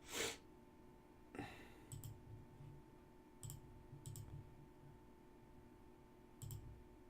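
A few faint computer mouse clicks spread over several seconds against quiet room tone, after a short rush of noise at the very start.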